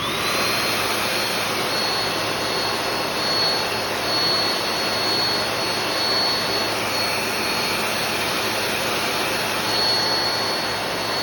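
Hair dryer switched on and blowing steadily, its motor whine climbing quickly to a high steady pitch over the rush of air. It is heating the phone's screen to soften the adhesive before the screen is pried off.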